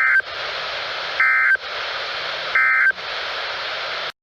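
NOAA Weather Radio Emergency Alert System end-of-message signal: three short two-tone digital data bursts, each about a third of a second and roughly a second apart, with steady radio hiss between them. The bursts mark the close of the Required Weekly Test message. The audio cuts off just before the end.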